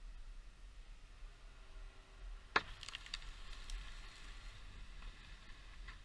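A single sharp knock about two and a half seconds in, followed by a few faint clicks, over a steady low rumble.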